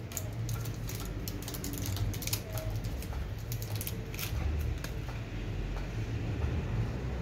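Small metal alternator parts clicking lightly as they are handled by hand: irregular clicks, thinning out after about three seconds, over a steady low hum.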